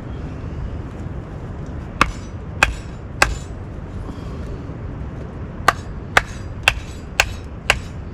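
Batoning: a wooden baton striking the back of a blade driven into a stick of wood to split it. Three sharp blows, a pause, then five more at about two a second.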